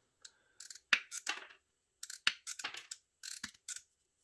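DeWALT cutters biting through soft 2×2.5 mm² copper cable: a series of short crunches and sharp snaps, several separate cuts with quiet between, the cable cut easily without strain.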